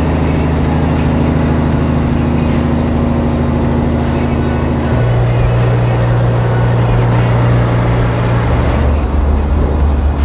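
Diesel engines of semi trucks running as the trucks drive past one after another. It is a deep, steady drone whose note changes abruptly twice as a different truck is heard.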